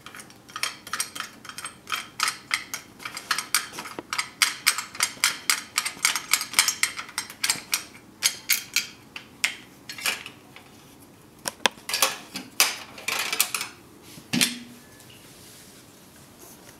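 Small metallic clicks of a wing nut being unscrewed from a threaded hook on an oil heater's metal wheel plate, about four a second for the first ten seconds. After that come a few scattered clicks and one knock as the wheel plate is handled.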